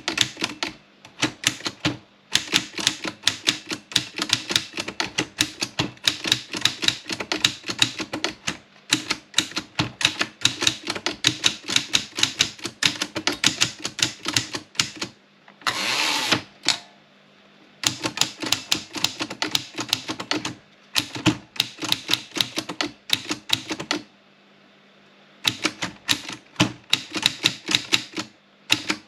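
Olympia Plana portable manual typewriter being typed on at a quick pace, a rapid run of sharp key strikes. The typing breaks off twice for a second or so. About halfway through there is one brief sliding rasp.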